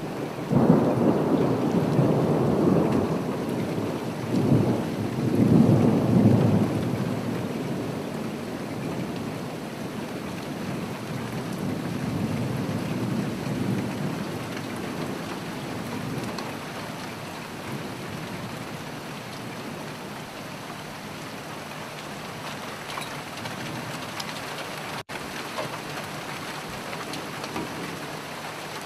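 Steady rain with rolling thunder: two loud rumbles in the first seven seconds and a weaker one near the middle, then rain alone, broken by a momentary gap about three quarters of the way through.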